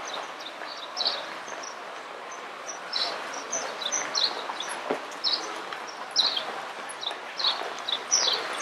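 Small birds chirping again and again: short, high chirps that drop in pitch, a couple a second, over steady background noise.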